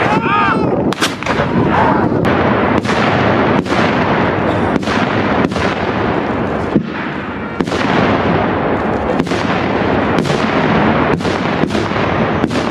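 Volley of muzzle-loading field cannons firing. Sharp bangs come about once a second or faster over a continuous din.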